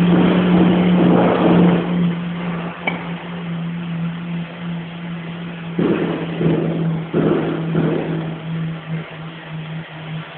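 The pump motor of a resin injection machine humming steadily at one pitch, with several bursts of hissing, most strongly in the first two seconds and again about six to eight seconds in.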